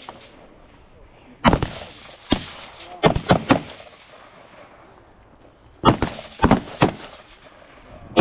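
Gunshots fired in short strings, about seven in all: a single shot, then quick runs of two and three shots, with gaps of one to two seconds between strings, each crack followed by a brief echo.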